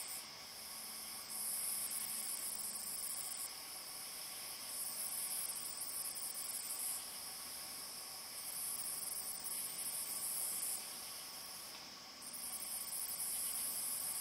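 Night insects trilling: a high, buzzing chorus that swells and drops away in spells of about two seconds, four times over, above a faint steady hiss.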